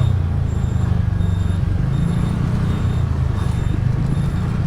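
TVS Ntorq 125 scooter's single-cylinder engine running steadily while riding, a constant low hum with road noise.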